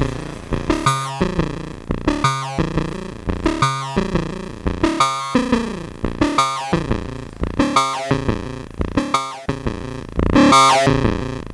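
Verbos Foundation Oscillator in a modular synthesizer playing a pattern of short, decaying notes, about two to three a second, rich in overtones. The harmonics shift from note to note as the richness control multiplies the rich waveforms, a sound a bit like a hard-synced oscillator. A louder, longer note comes near the end.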